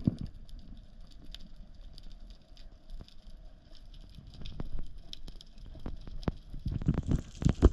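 Underwater sound picked up by an action camera: scattered sharp clicks and crackles over a low rumble of moving water, with a few heavier thumps near the end.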